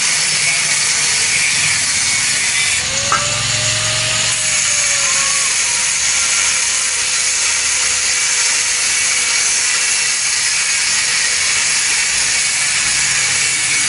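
Handheld electric angle grinder with a thin abrasive cut-off disc cutting through square steel tubing: a steady, loud grinding hiss, with a short click about three seconds in.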